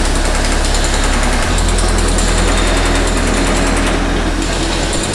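Chipping hammer on a PAM manipulator arm hammering rapidly against a concrete ceiling, breaking away spalled concrete, over a steady low machine hum.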